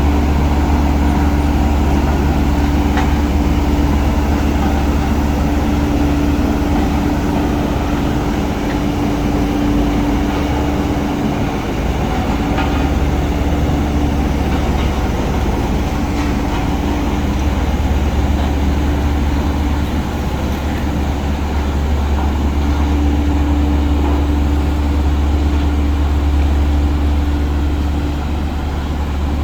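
Heavy earthmoving machine's diesel engine running steadily while working, a deep continuous rumble with a steady hum above it that drops out and comes back several times.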